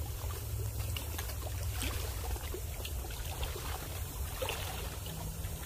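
River water washing along a rocky shore, with a steady low rumble underneath and a few faint ticks.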